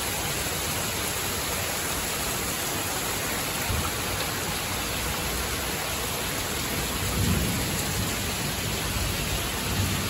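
Heavy rain pouring steadily in a severe thunderstorm, with strong wind thrashing the trees. Low rumbles swell briefly about four seconds in, again around seven seconds, and near the end.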